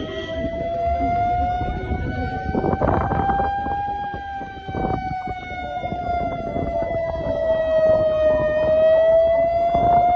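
A siren wailing, its pitch rising slowly, falling, then rising again, over a low rumble with a few knocks.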